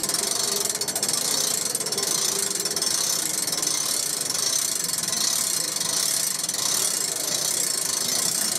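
Gears of a hand-cranked souvenir coin-pressing machine clicking and rattling steadily as its steering-wheel handle turns the toothed die disc to select a design.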